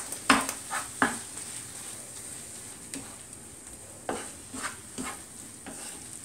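A spatula scraping and knocking against a frying pan as a tomato, onion and masala mixture is stirred and mashed, in two clusters of strokes, over a faint sizzle of the cooking.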